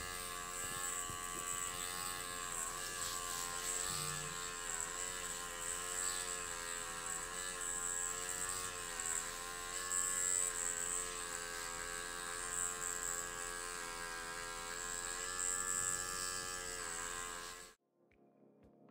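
Electric microneedling pen buzzing steadily as it is moved over the skin, its pitch wavering slightly. The buzz cuts off suddenly near the end.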